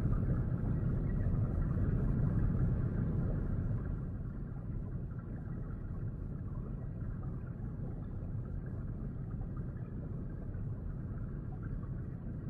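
Low, steady underwater rumble of moving water, easing a little about four seconds in.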